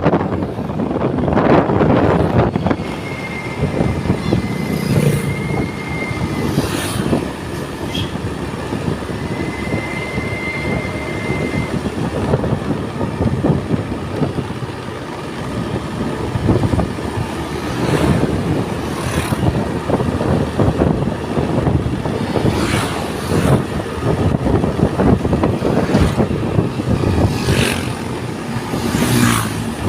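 Large excavator working: its diesel engine running steadily, with sharp knocks now and then and a high steady tone twice for a few seconds each, near the start.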